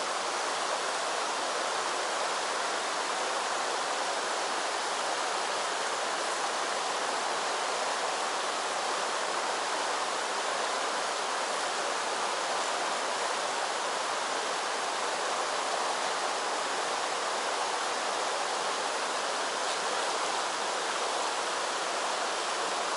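Shallow mountain stream flowing over a pebble and cobble bed, a steady, unbroken rush of water.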